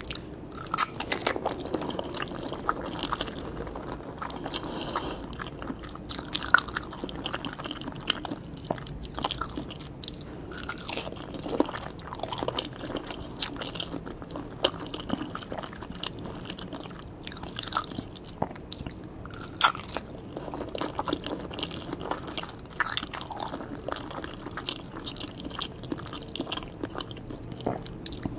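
Close-miked eating: bites taken from a soft white dessert held in its cup, with wet chewing and many sharp mouth clicks and smacks.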